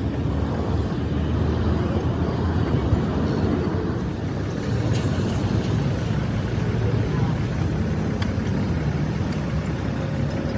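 Steady low rumble of traffic or engine noise, with indistinct voices in the background and a few faint ticks.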